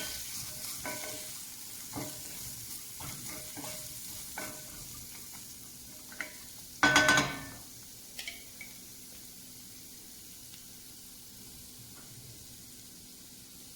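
Food frying in a pan with a faint sizzle while a metal utensil stirs it, clinking against the pan several times. One loud ringing clink comes about seven seconds in, then only the faint sizzle.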